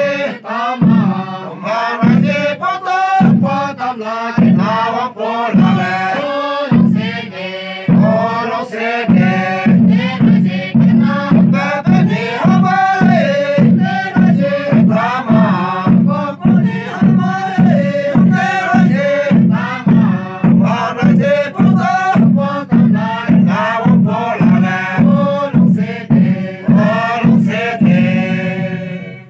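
Voices singing a chanted hymn in unison over a steady low beat, about two beats a second.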